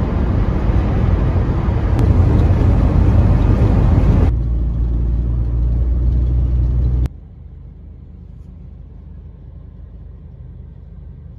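Road noise inside the cab of a Class C Winnebago Minnie Winnie motorhome on the move: loud tyre and wind noise at highway speed, dropping about four seconds in to a quieter, lower drive noise, then about seven seconds in to a faint low rumble.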